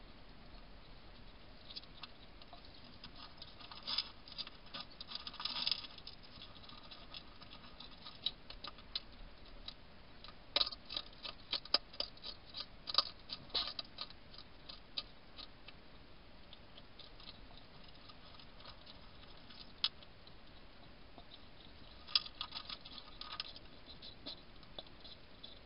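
European hedgehog eating dry food pellets from a bowl: three bursts of quick, sharp crunching clicks, the longest in the middle.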